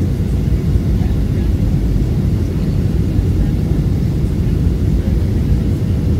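Steady low rumble of a Boeing 737-700's CFM56 jet engines and rushing airflow, heard inside the passenger cabin on final approach with the flaps extended.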